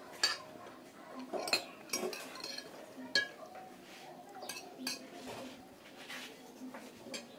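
Metal spoon clinking and scraping against a glass dish while eating, several sharp clinks at irregular intervals.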